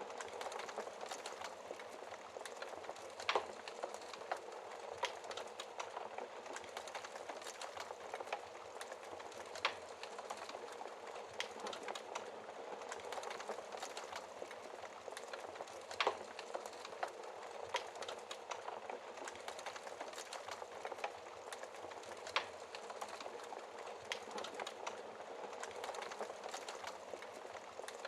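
Wood fire burning in a fireplace: a steady crackling hiss with frequent small snaps and a louder pop every few seconds.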